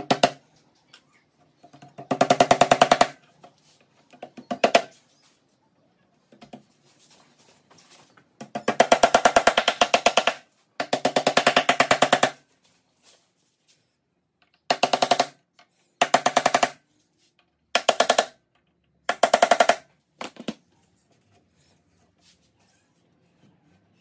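Cordless impact driver hammering screws into pine seat slats: about ten bursts of fast, even rattling, the longest about two seconds, separated by short pauses.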